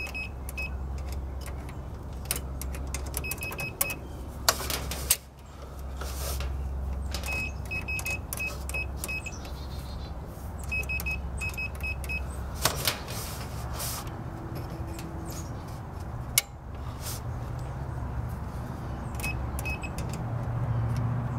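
Frigidaire dryer's 110-volt drive motor running with a steady low hum on test power, lid switch bypassed: the motor is okay. It cuts out about five seconds in and comes back within a second. Clusters of short high beeps and a few sharp clicks sound now and then over it.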